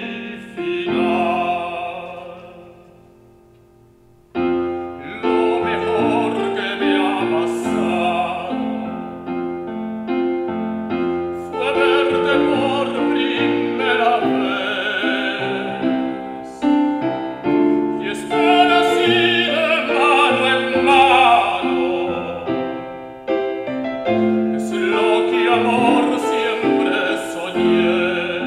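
Tenor singing in operatic style with vibrato, accompanied on a digital keyboard's piano sound. The music fades almost to silence about two seconds in, then voice and keyboard come back in about four seconds in and carry on.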